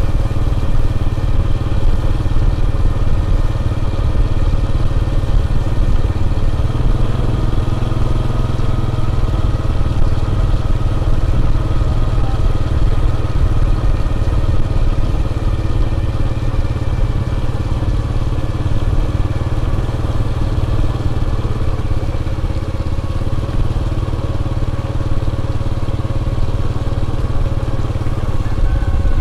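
A vehicle engine running steadily at an even pitch over a constant deep rumble.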